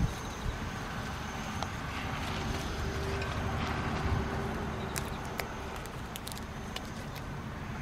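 San'in Shiba puppies gnawing and tugging at a cherry branch on gravelly dirt: scattered small clicks and scrapes of teeth, twig and paws, over a steady low rumble.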